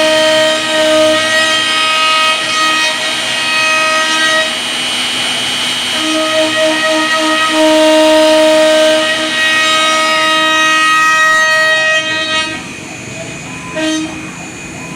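CNC wood router's spindle running and cutting, a steady high whine of several tones that swells and fades as the bit works the wood. Near the end it drops noticeably quieter.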